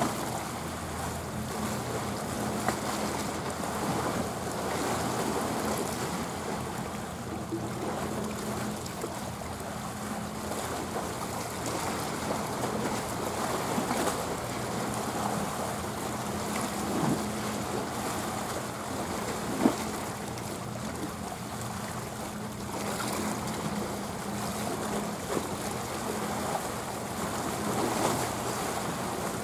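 Steady low drone of a passing container ship's engine carried across the water, over a continuous wash of small waves lapping. A single brief tap about twenty seconds in.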